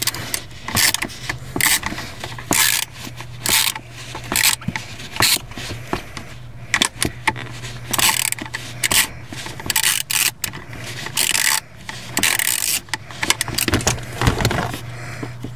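Ratchet with a 7 mm socket clicking in short repeated strokes, roughly one a second, as it backs out a small screw.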